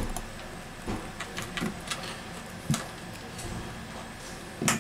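Scattered small clicks and taps of metal tweezers and fingertips on the internal parts of an opened smartphone, with a sharper click near the start and another near the end.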